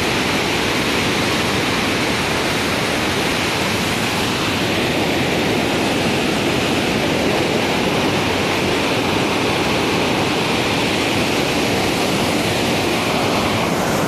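Muddy flash-flood water pouring over the rock ledges of a waterfall in spate: a loud, steady rush of water.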